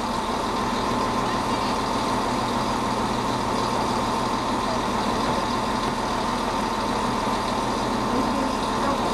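Passenger train standing at a platform, its engine and onboard equipment running with a steady hum and a thin, constant whine.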